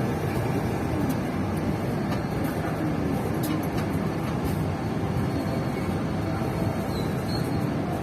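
Steady running noise of a passenger train in motion, a constant rumble with no sudden events.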